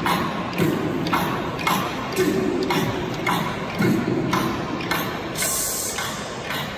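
A steady rhythmic beat, about two a second, echoing around a packed cricket stadium over continuous crowd noise.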